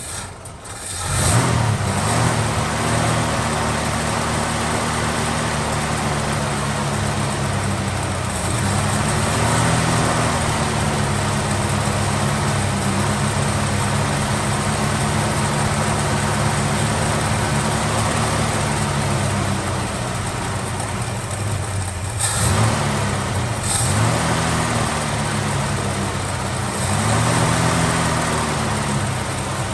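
Valiant Charger engine running. It picks up about a second in, then idles steadily with a few short blips of the throttle.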